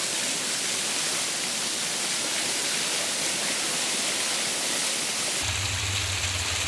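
Waterfall: steady rushing of falling water. About five seconds in, a low steady hum joins it.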